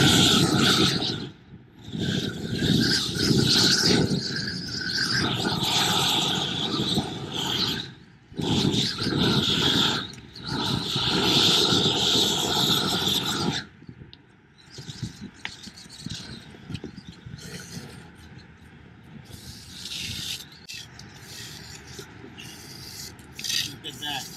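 Handheld propane roofing torch firing in several long bursts of hiss, heating the roof membrane on the wall. About 14 seconds in the bursts stop and only a much quieter hiss with scattered small clicks remains.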